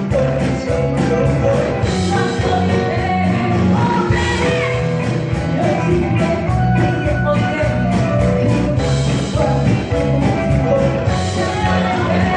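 A live band playing a song, with a vocalist singing over the instruments and a regular drum beat.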